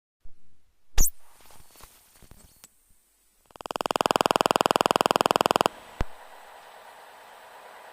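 Angle of attack indicator in a Cessna 172 Skyhawk sounding its aural warning: a loud, rapid chirping for about two seconds, cutting off suddenly. A sharp click comes about a second in and another just after the chirping stops.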